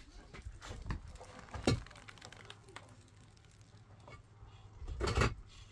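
Hollow clay bricks being handled and set on a masonry wall: scattered knocks and scrapes, a sharp knock about a second and a half in and a louder scraping knock near the end.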